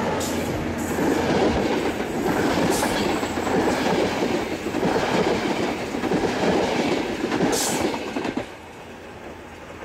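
Passenger train cars rolling past close by on a curve, the wheels rumbling on the rails with a few sharp clicks. The noise drops away after about eight seconds as the last car passes.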